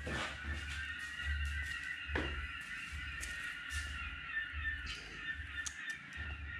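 Domestic cat purring while being petted: a low rumble that swells and fades with each breath, a little more than once a second.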